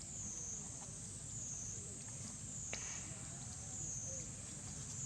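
Insect chorus: a steady high-pitched drone that swells and fades about once a second, with one sharp click about halfway through.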